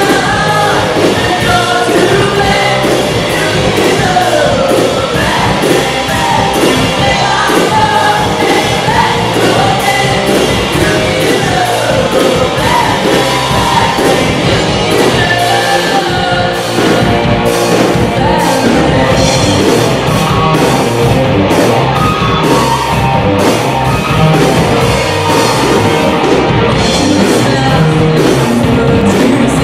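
Live rock band playing, with a female lead singer over two electric guitars, bass guitar and a drum kit.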